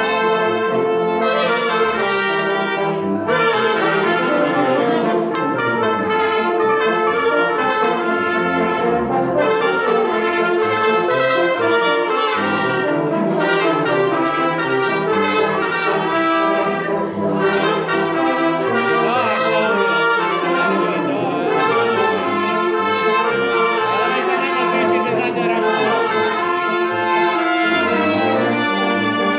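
Small band of tubas, euphoniums, trumpet and saxophones playing a piece together, steady and without pause.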